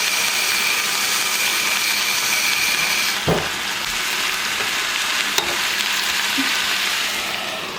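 Diced chicken, onion and peppers with tomato paste sizzling steadily in hot oil in a frying pan. A single knock sounds about three seconds in.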